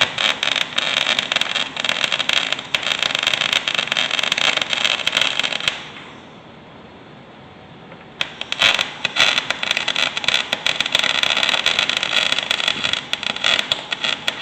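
Semi-automatic (MIG) welding arc crackling in two runs, with a pause of about two seconds near the middle, as a bead is laid to fill gaps in a tool box.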